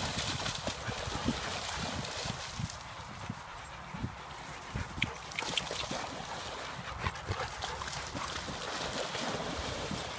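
Several dogs splashing through shallow lake water and swimming, an irregular, continuous splashing and sloshing.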